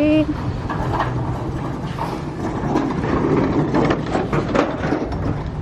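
Outdoor flea market ambience: scattered clicks and knocks over a steady low rumble, without clear speech.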